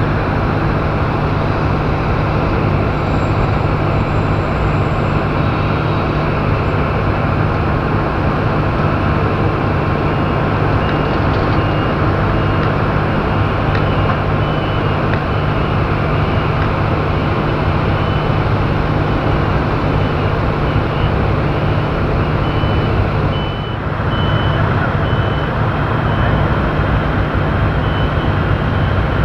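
Steady, loud jet noise from a Boeing 777 freighter sitting on the ramp, with a low steady hum underneath. A faint repeating high beep runs through the second half, and the noise dips briefly about three-quarters of the way through.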